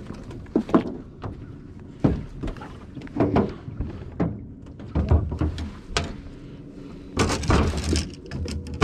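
Irregular knocks, clicks and rustling of fishing gear and clothing being handled in a boat, with a louder stretch of clattering and a low thump about seven seconds in.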